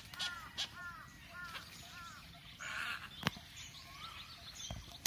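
Birds at a tree nesting colony calling: a quick run of short down-slurred calls, then a harsh call and scattered higher chirps. Two sharp clicks cut through, one just past the middle and a louder one at the end.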